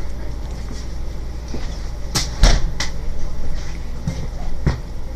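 A few sharp knocks and clicks, about three close together in the middle and one more near the end, over a steady low hum.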